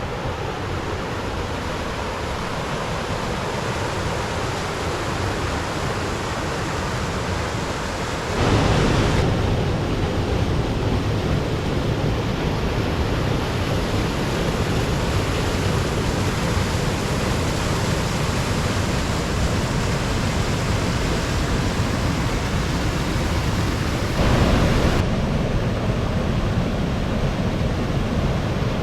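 Rushing water from a mountain stream or waterfall: a steady, full-bodied rush that steps louder about eight seconds in and again near the end.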